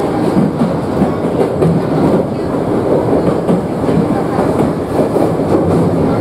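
Chichibu Railway 7500 series electric train running at speed, heard from inside the passenger car: a steady rumble of wheels on rails with occasional clicks over rail joints.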